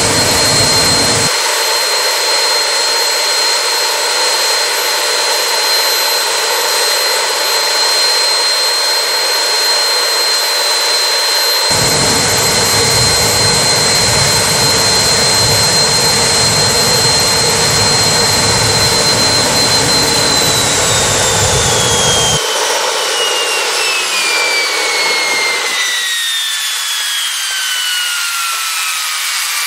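Homemade jet engine running steadily, a high turbine whine over a loud rushing roar. About two-thirds of the way in it begins to wind down, the whine falling steadily in pitch.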